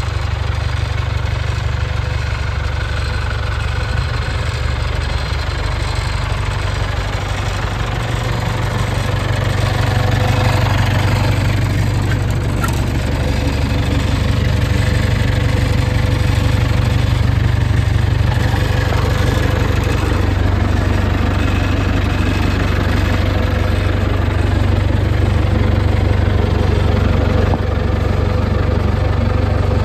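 International 574 tractor's four-cylinder engine idling steadily, a little louder from about ten seconds in.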